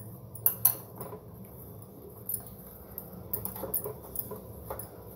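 Hands kneading soft maida dough in a glass bowl: faint, irregular sticky squishes and small clicks.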